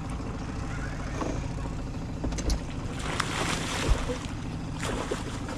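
Boat's outboard motor running steadily at trolling speed, with a brief burst of noise about three seconds in and a sharp knock about a second later.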